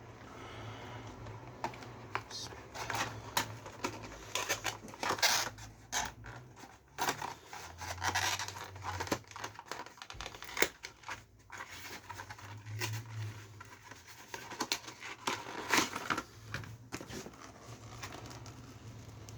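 Plastic packaging being handled and opened: irregular crinkling, scratching and sharp clicks, densest in the middle stretch.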